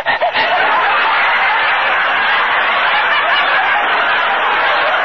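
Live studio audience laughing, one sustained crowd laugh at even strength throughout. The recording is an old broadcast, dull with no treble.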